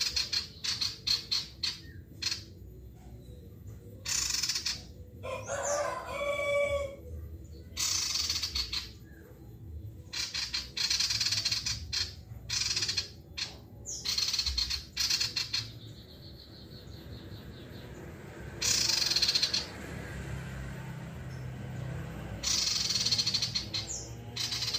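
A caged male common iora (sirtu) singing in full voice, in rapid chattering bursts repeated over and over. A rooster crows once about five seconds in.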